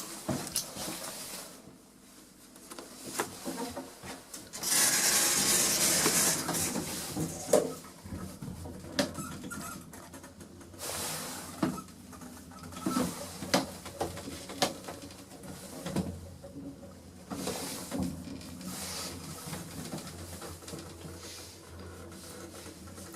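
Passenger lift in operation: scattered clicks and knocks, a loud rush of noise lasting about three seconds, then a steady low hum with further clicks.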